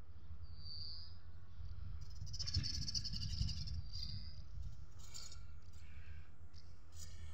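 Small birds calling and chirping in short high phrases, busiest from about two to four seconds in, over a low steady rumble.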